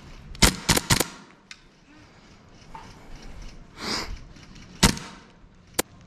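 Gas blowback airsoft guns firing: a quick string of four sharp shots in the first second, then a single loud shot later and a fainter one near the end. A short rushing noise comes shortly before the later shot.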